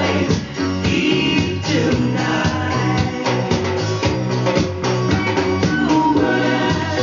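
A song with singing and a drum kit, played from a vinyl record on a Telefunken W215 HiFi turntable.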